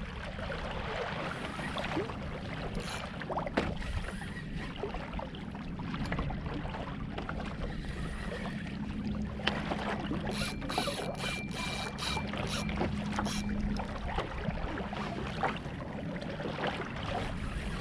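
Water sloshing around a fishing kayak on the sea, with a run of sharp clicks and rattles from about ten seconds in, while a hooked fish is being played.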